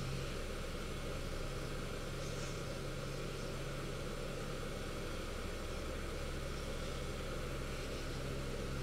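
Hand-held hot-air heat gun running steadily, its fan blowing with an even whoosh and a constant low hum while it shrinks heat-shrink tubing.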